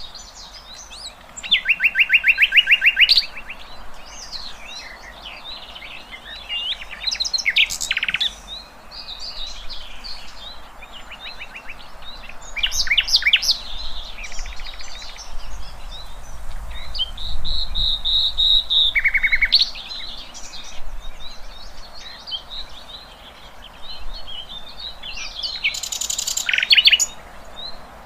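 Several wild songbirds singing and chirping together, with fast rattling trills that are loudest about two seconds in and again near the end, and a held whistled note a little past the middle.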